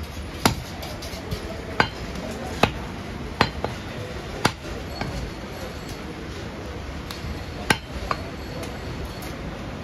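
Butcher's cleaver chopping goat meat on a wooden chopping block: a run of sharp chops about a second apart, a pause of about three seconds, then another chop near the end.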